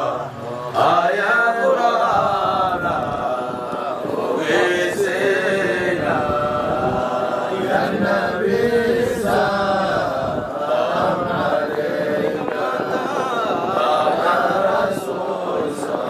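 Several men's voices chanting a Sufi dhikr qasida in Arabic together, without a break.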